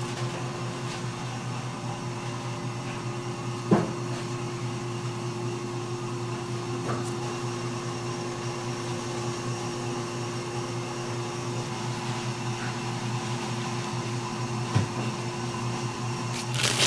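Steady hum of running kitchen machinery: a low drone with a steady higher tone over it. A light knock about four seconds in, a fainter one later, and a brief rustle at the very end.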